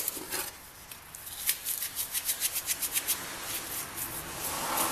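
Stiff bristle brush scrubbing grit out of a three-jaw lathe chuck part wet with kerosene: quick scratchy strokes, about three a second, coming faster in the second half.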